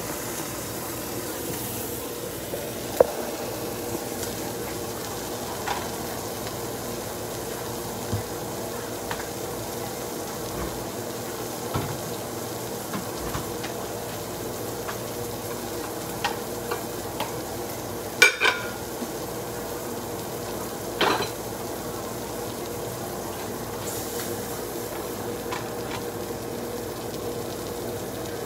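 Tilapia and shrimp frying in a pan with a steady sizzle. Now and then utensils clink against dishes, loudest about two-thirds of the way through.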